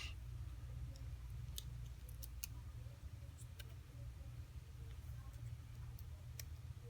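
Faint, scattered clicks and ticks of small tools and parts being handled during iPhone 4S disassembly, over a low steady hum.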